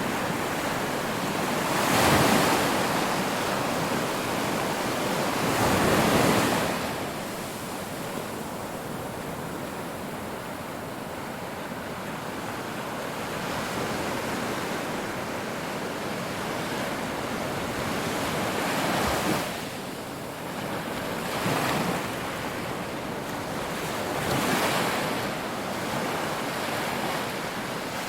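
Ocean surf breaking on a shore: a continuous wash of water with waves swelling and crashing, the loudest about two and six seconds in and smaller ones later.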